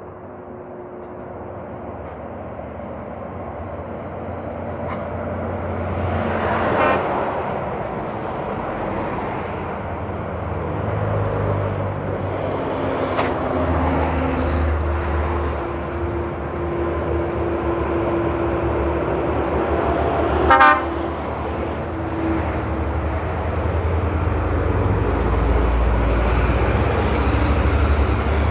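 Heavy trucks passing on a road, their diesel engines rumbling and growing louder, with a vehicle horn tooting and two short sharp bursts of noise.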